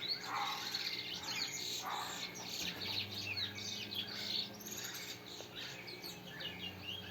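Small songbirds chirping and singing, with many short, quick calls overlapping one another.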